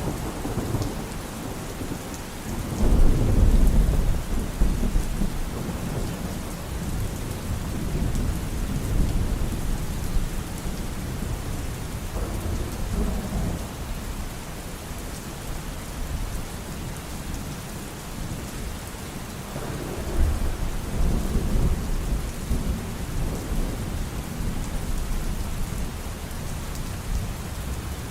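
Steady rain falling, with rolls of thunder rumbling deep and low about three seconds in, again around twelve seconds and around twenty seconds.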